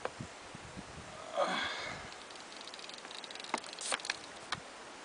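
A short, breathy sniff about a second and a half in, then a few sharp clicks of handling noise.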